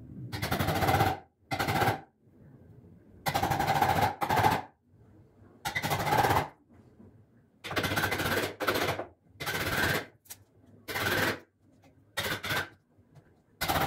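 A handheld powered chisel runs in about ten short bursts of rapid hammering, its blade cutting into the willow edge of a cricket bat, with brief pauses between bursts.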